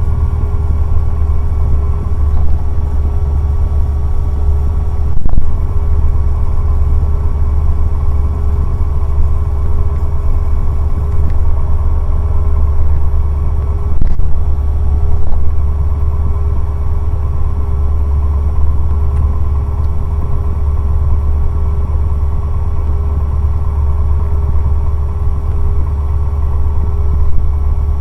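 Cessna 150's Continental O-200 engine and propeller droning steadily in the cockpit, a loud, even hum with a steady tone running through it. A couple of short clicks come through about five and fourteen seconds in.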